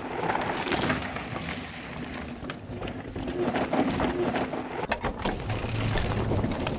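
Downhill mountain bike tyres crunching and skidding over a dry, loose dirt trail, with knocks and rattles from the bike over bumps.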